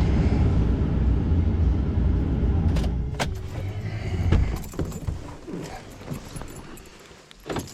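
A vehicle's low, steady rumble that fades away a little over halfway through, with a few sharp clicks about three seconds in and another near the end.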